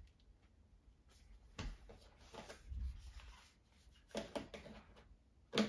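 Handling noise: a few scattered light clicks and knocks, with a dull thump about three seconds in and the sharpest click near the end.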